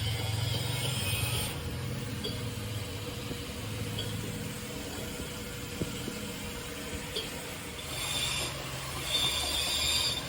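Electric arc welding on galvanised steel pipe: a crackling hiss that comes in spurts, during the first second or so and again near the end, over a low steady hum.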